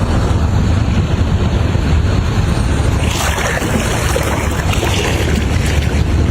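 Floodwater rushing, with wind buffeting the microphone as a loud steady rumble. A brief surge or splash comes about three seconds in.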